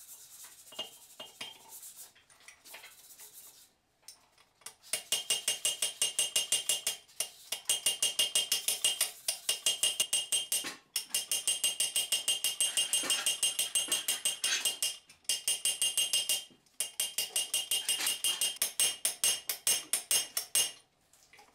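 Rapid light hammer taps ringing on the metal flange of a Sarven wheel hub set with wooden spokes, in runs of a few seconds with short pauses. They begin about five seconds in, after a few quieter scattered clicks.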